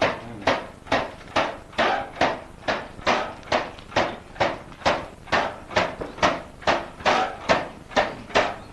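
Steady rhythmic knocking: a sharp strike a little more than twice a second, each with a brief ringing tail.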